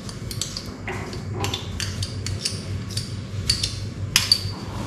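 Small metal spoon clinking and scraping against a small glass bowl as garlic paste is scraped out, a series of irregular light taps, over a faint steady low hum.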